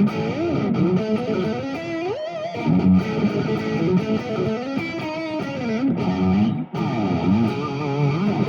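Fernandes TEJ-70 Telecaster-style electric guitar playing single-note lead lines with string bends and vibrato, with a brief break about six and a half seconds in.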